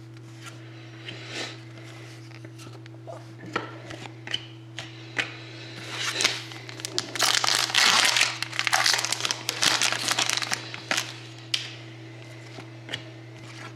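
Foil trading-card pack wrapper crinkled and torn open, with cards handled and snapping, the crinkling densest about six to eleven seconds in. A steady low hum runs underneath.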